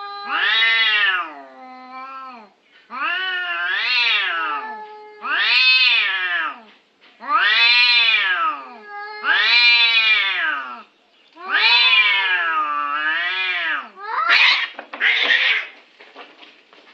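Domestic cats caterwauling in a face-off: about six long, wavering yowls in a row, each rising and falling in pitch, the low threatening song of a cat fight standoff. Near the end the yowling breaks into a brief harsh, noisy outburst as the standoff breaks up.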